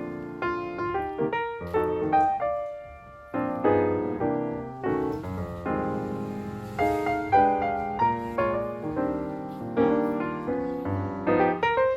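Background music: solo piano playing a gentle flowing melody with chords, notes struck and left to ring.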